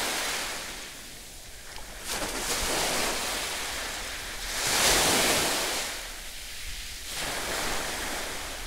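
Small sea waves washing onto a beach, the surf swelling and fading every two to three seconds. Near the end it is joined by splashing as a swimmer wades out through the shallows.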